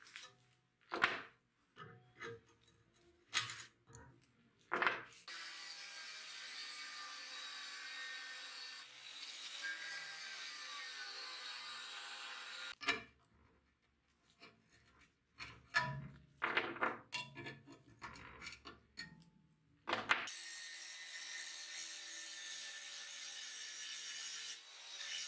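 Angle grinder cutting and grinding the edge of a steel sword blank forged from a coil spring, in two long steady passes. Before and between the passes come a series of sharp metallic knocks and clinks.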